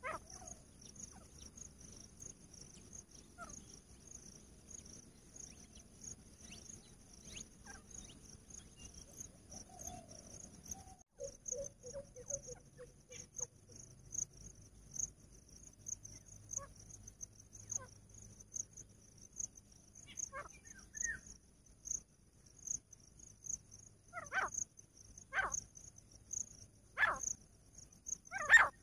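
Grey francolin calling: short, sharp calls about one every second and a half, starting faint and getting louder over the last several seconds, the build-up of its call sequence. A steady pulsing insect trill runs underneath.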